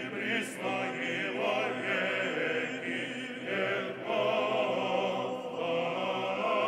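A choir singing slow chant: sustained notes with a wavering vibrato, moving to a new chord every second or so.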